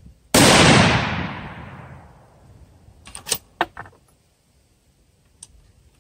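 A single rifle shot from a Savage TPH bolt-action in .243 Winchester. The report fades away over about a second and a half. About three seconds in come several sharp metallic clicks as the bolt is worked.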